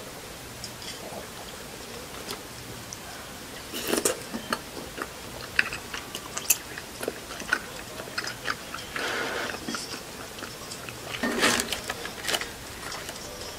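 Close-up eating sounds: chewing rosé tteokbokki rice cakes, with scattered small clicks of chopsticks and tableware. Near the end comes a louder burst of paper and cardboard rustling as the takeout box of fried food is handled.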